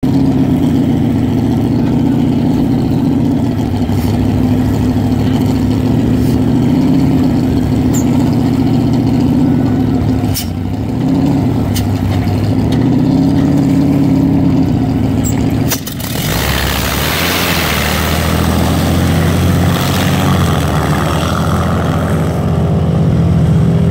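Supercharged race-boat engine idling steadily, then opening up about sixteen seconds in as the boat pulls away, the engine note joined by a loud rush of spray and water.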